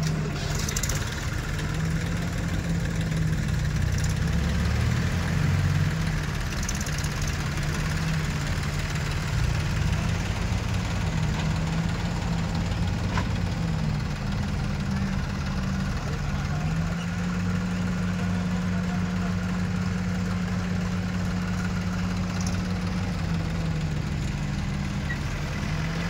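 Diesel engines of an Escorts Digmax backhoe loader and a tractor running together. The engine note steps up and down as the backhoe digs and swings its arm, and settles higher from about two-thirds of the way in.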